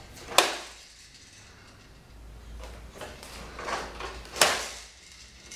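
Plastic push-along baby walker being pushed over a wooden floor: quiet rolling and rattling, with two sharp knocks, one just after the start and a louder one about four seconds later.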